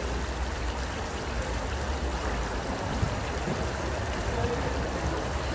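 Broth boiling and bubbling through the rice in a giant cast-iron kazan of plov: a steady watery bubbling over a low rumble.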